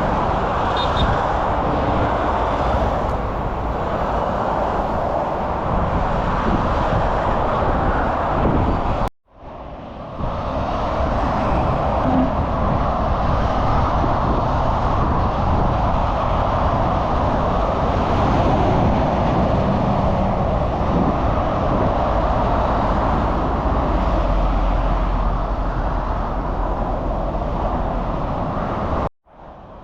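Steady rush of road traffic, with no distinct events in it. It cuts out briefly to near silence about nine seconds in and again near the end.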